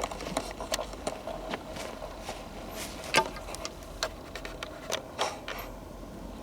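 Footsteps on dry forest floor: irregular crunching and snapping of leaf litter and small twigs underfoot, with one sharper snap about three seconds in.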